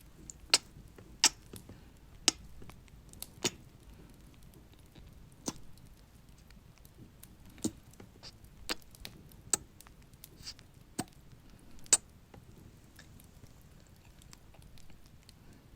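Close-up kissing sounds into the microphone: about a dozen short, wet smacks, spaced irregularly about a second apart.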